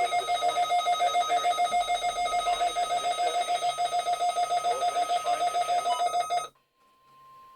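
Weather alert radio's alarm beeping rapidly, a loud pulsing electronic tone of about seven beeps a second, set off by a Required Weekly Test. It cuts off suddenly near the end, leaving a faint steady tone.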